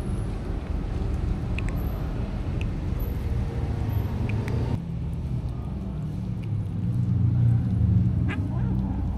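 A steady low mechanical rumble, with a few faint clicks over it; the sound changes abruptly about five seconds in.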